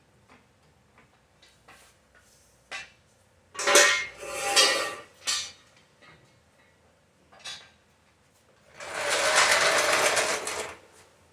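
Welder laying short welds on steel rock sliders: a cluster of three quick arc bursts near the middle, a brief blip, then one steady weld of about two seconds near the end.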